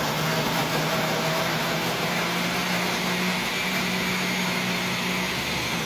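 Countertop blender running steadily, its motor whirring as it purées peeled tangerines into juice.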